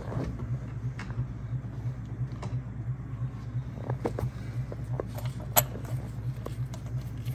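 Light clicks and clinks of small metal parts being handled: greased thermostat-housing bolts and housing. One sharper click comes about five and a half seconds in, over a steady low humming drone that pulses several times a second.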